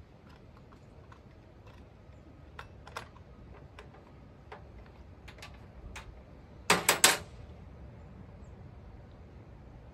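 Scattered light clicks and taps from a chainsaw being handled on a workbench, with a quick run of three loud knocks about seven seconds in.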